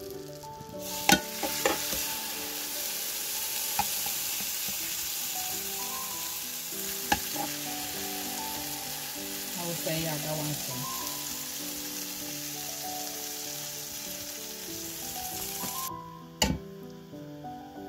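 Butter sizzling in an electric skillet as egg-soaked bread slices are laid in, with a few sharp clicks from metal tongs. The sizzle cuts off suddenly near the end.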